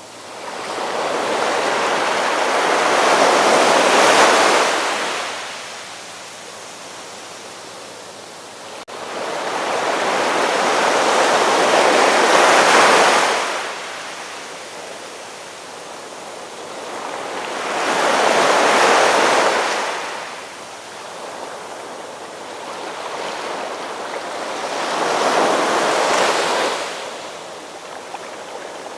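Ocean waves breaking and washing in: four surges, each swelling and fading over a few seconds, about every seven seconds, with a steady softer wash between them.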